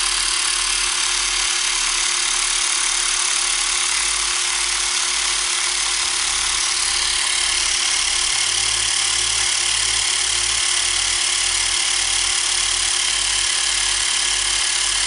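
Xiaomi portable electric air pump running steadily, inflating a ball through its needle adapter in ball mode.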